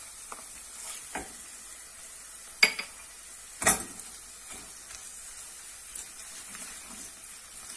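Onions, potatoes, tomato paste and garlic sizzling in hot oil in a stainless-steel pot while being stirred with a wooden spoon. There are two sharp knocks about a second apart near the middle, and a few lighter clicks.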